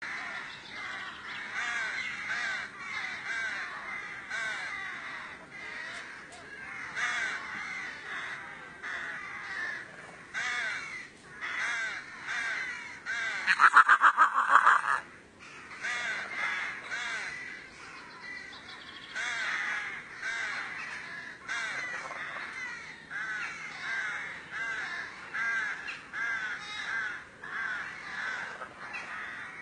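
A continuous chorus of short, wavering animal calls overlapping one another, which the uploader takes for a wild forest cat. About halfway through, one much louder call comes as a rapid string of pulses lasting a second or so.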